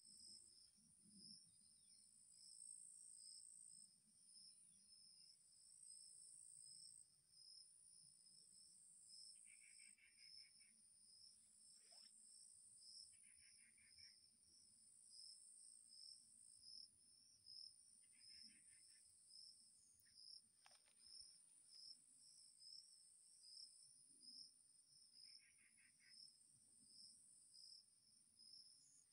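Faint chorus of insects: a steady high-pitched buzz with a regular pulsing chirp, and four short buzzy trills from another insect scattered through.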